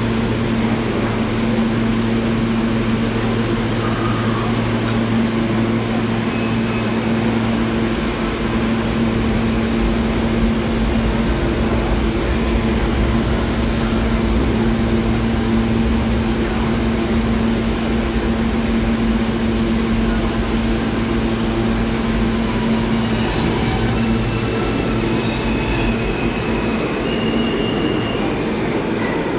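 New York City Subway E train standing at the platform with a steady hum, then pulling out of the station, with short high wheel squeals near the end as it leaves.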